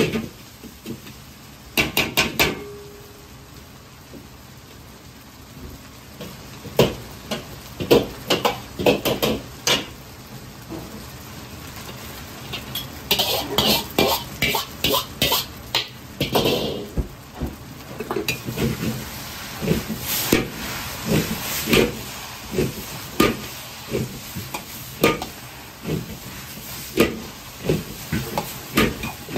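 Fried rice stir-fried in a wok: a metal ladle knocks and scrapes against the wok again and again as the rice is tossed, with frying sizzle underneath. A louder stretch of hissing sizzle comes about halfway through.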